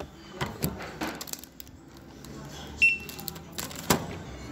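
Handheld barcode scanner at a self-checkout giving one short high beep a little under three seconds in as an item is scanned, amid the clicks and rustle of plastic goods being handled, with a sharp knock near the end.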